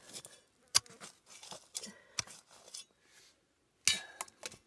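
A small hand spade scraping and digging in stony dirt at the bottom of a hole, with two sharp knocks, about a second in and near the end.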